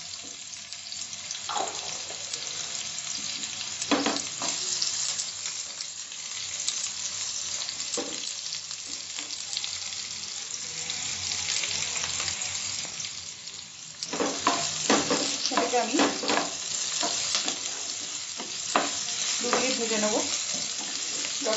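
Sliced onions sizzling in hot ghee in a nonstick kadai, a steady hiss, with a wooden spatula stirring and scraping through them. The stirring strokes are sparse at first and come thick and fast from about two-thirds of the way through.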